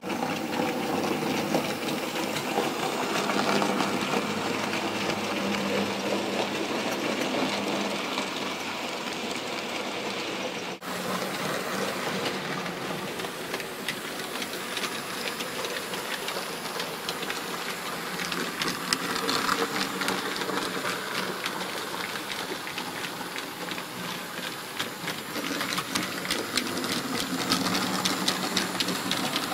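Model Bachmann SECR C class locomotive and its train running on the layout track: a steady electric-motor whir with wheels clicking over the rail joints, broken briefly about eleven seconds in.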